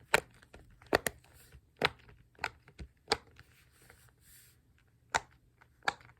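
Bubbles of a silicone pop-it fidget toy pressed one after another, each giving a short, sharp pop. About nine pops come at an uneven pace, with a pause of about two seconds in the middle.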